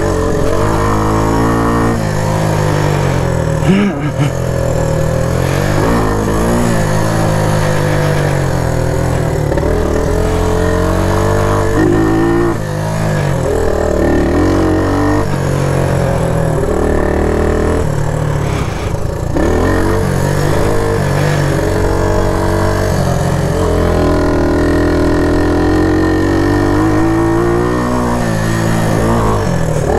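1975 Honda XL100's small single-cylinder four-stroke engine running under way, its revs repeatedly rising and falling as the throttle is worked, with a couple of brief dips.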